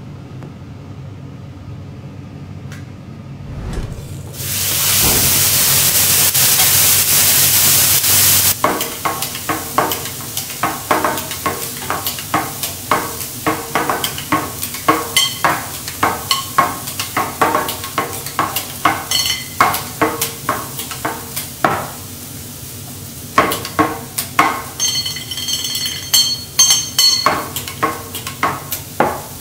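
Bean sprouts and vegetables frying on a hot teppanyaki steel griddle: a loud, steady sizzle starts about four seconds in and lasts about four seconds. After that comes fast, uneven clacking of metal spatulas scraping and tapping on the griddle as the sprouts are tossed, with a few high ringing metal taps near the end.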